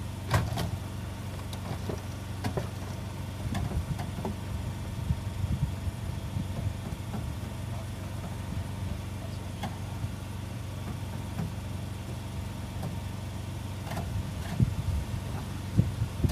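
An engine idling steadily with a low hum, with scattered sharp knocks of things being handled, several in the first few seconds and a couple near the end.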